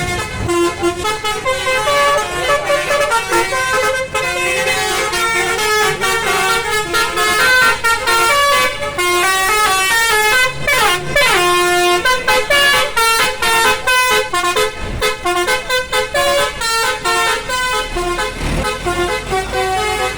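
Bus's Basuri multi-tone air horn playing a long melody of quick, stepping notes, with a falling glide about halfway through and fast choppy repeated notes in the second half.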